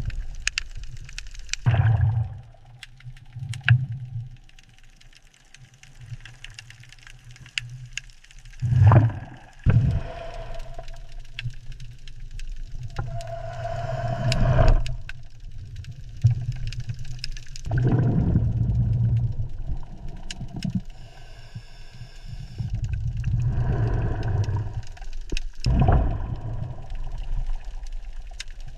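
Low underwater rumble swelling and fading in waves every few seconds, with hollow groaning tones and a short buzzing tone about three quarters of the way through: deep-sea ambient sound design.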